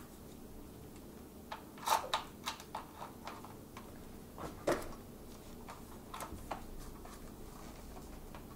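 Scattered light clicks and knocks of a key being worked in an e-bike's battery lock and the battery being handled against its frame mount. The clicks come in a loose run from about a second and a half in to about six and a half seconds, then stop.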